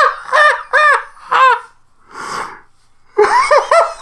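A man laughing hard in high, wailing bursts, one run of them, a sharp breath in about two seconds in, then another run.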